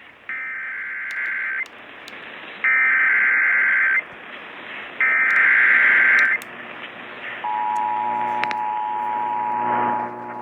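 Emergency Alert System data header: three loud, screeching digital bursts about a second apart. About seven and a half seconds in, the EAS two-tone attention signal begins and holds steady, marking the start of a required monthly test. Faint radio hiss lies underneath.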